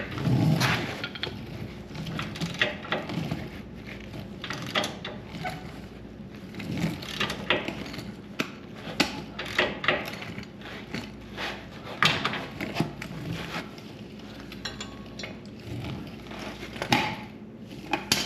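Hand tools working on the Jeep's metal steering parts: irregular clanks, clicks and knocks of wrench and fittings, with a few louder strikes about a second in, around twelve seconds in and near the end.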